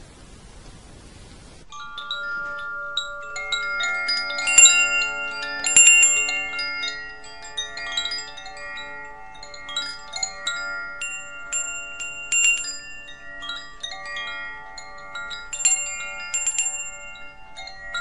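Chimes ringing: many bright metallic tones struck at irregular moments, each ringing on and overlapping the others. They start about two seconds in, after a faint hiss.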